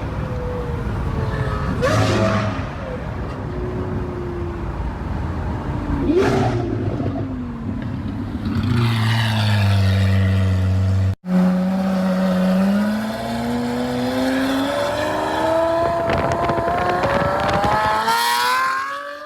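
Lamborghini Aventador SVJ's naturally aspirated V12 engine revving. It gives two sharp rev swells about two and six seconds in, then settles into a steady low drone that cuts out for an instant. Its pitch then climbs steadily toward the end.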